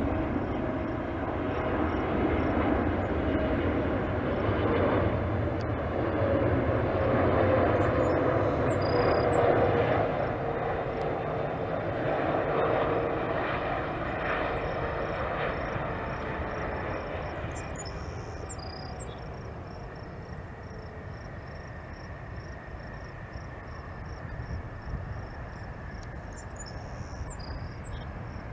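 Boeing 777-300ER's GE90 jet engines passing close on landing approach: a steady jet rumble with a whine that slowly falls in pitch. It is loudest about a third of the way in, then fades as the airliner moves off down the runway.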